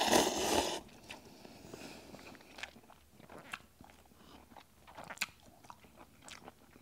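A person eating instant ramen noodles: a loud slurp in the first second, then quiet chewing with scattered soft, wet mouth clicks.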